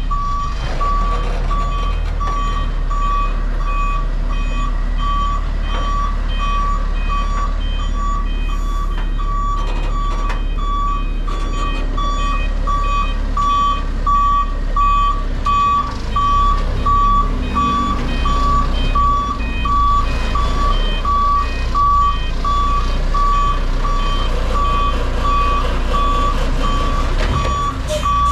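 A heavy-haul truck's reversing alarm beeping steadily at one high pitch, over the low rumble of the FAW JH6 tractor's diesel engine as it moves the loaded lowboy slowly.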